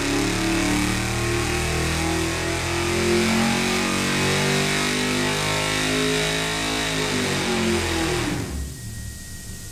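V8 crate engine running on an engine dynamometer, heard through the test cell's window. It runs steadily with its pitch wavering, then falls, and the sound drops away sharply about eight and a half seconds in.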